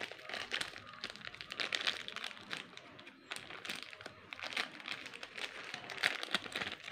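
Small clear plastic bag crinkling irregularly as it is handled and opened by hand.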